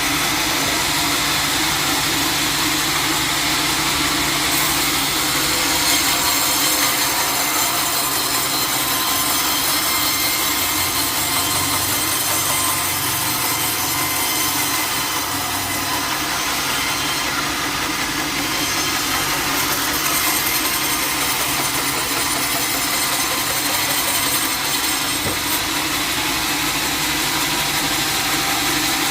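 Sawmill saw running and cutting through a teak log, a steady, continuous grinding noise.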